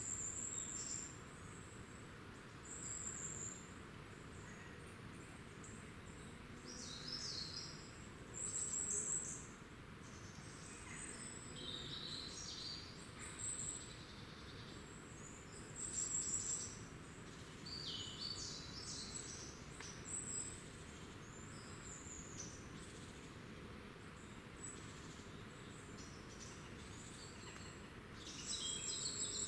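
Small woodland songbirds calling: high, thin chirps and short trills, scattered irregularly over a faint steady hiss.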